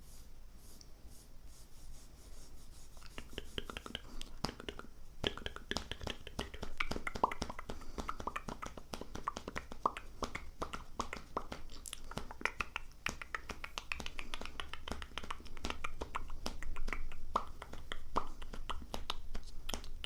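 Soft, rapid clicking and crackling close to the microphone, sparse at first and growing dense about three seconds in.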